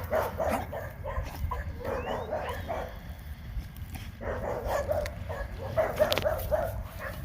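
A pocket American bully dog making a run of short vocalizations, with a brief pause midway before a second run.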